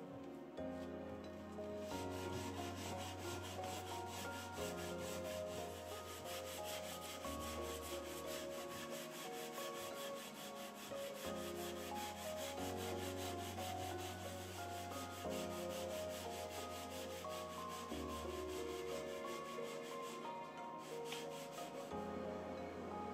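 Hand sanding: a red sanding pad rubbed in quick back-and-forth strokes over strips of wood edge banding glued to a drawer front. The strokes start about two seconds in and stop a couple of seconds before the end, over soft background music.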